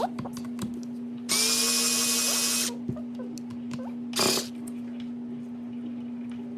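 Electric screwdriver running for about a second and a half, backing out screws on the RC buggy's front end, with its motor whine over the noise. A shorter loud burst of noise follows about four seconds in.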